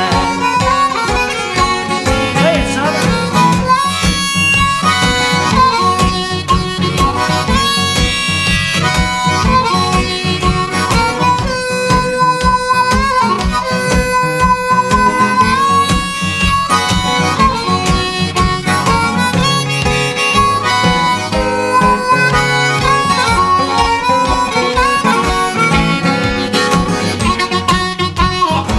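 Instrumental blues music: harmonica playing over guitar with a steady beat.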